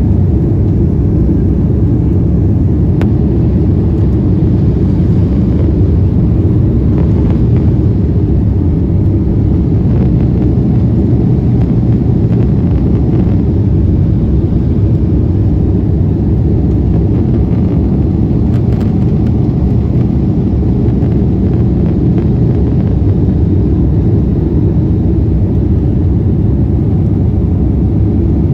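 Steady low rumble of an airliner's jet engines and rushing air, heard inside the passenger cabin as the plane climbs after takeoff.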